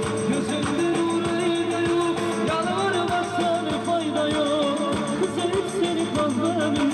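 Background music: a song with a singing voice over guitar and drums with a steady beat.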